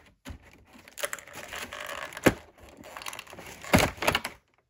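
Clear plastic packaging tray crinkling and clicking as a small action-figure accessory is pried out of it, with two sharp snaps, one about two seconds in and one near the end.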